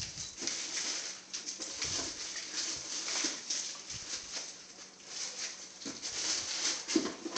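Soft, irregular noises from a dog moving about, with no barks.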